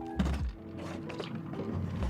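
Soft background music with a dull thud just after the start, followed by a few quieter knocks.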